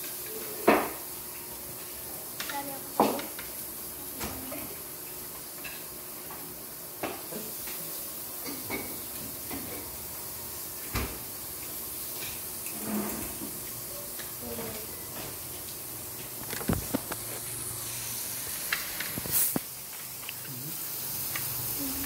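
Utensils and dishes clinking and knocking every few seconds over a steady hiss of meat sizzling on an electric grill pan, with faint voices.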